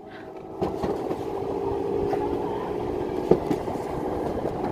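Alpine mountain coaster cart rolling down its steel monorail track under gravity: a steady whirring hum from the wheels on the rail, growing louder about half a second in, with a few sharp clacks.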